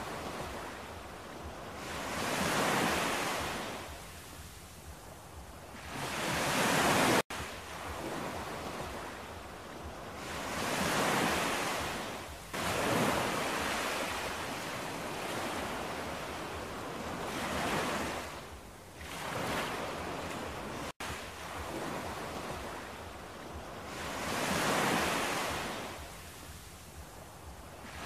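Ocean surf: waves breaking and washing in, swelling and fading every few seconds. Twice the sound drops out for an instant.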